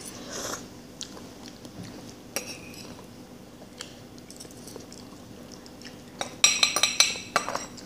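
Metal forks clinking and scraping against a bowl of noodles. A quick run of sharp, ringing clinks comes near the end.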